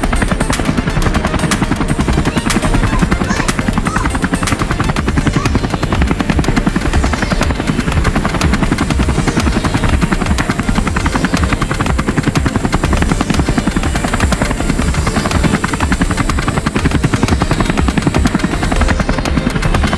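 Toy RC helicopter's rotors spinning as it flies, a loud, steady, fast chopping whir.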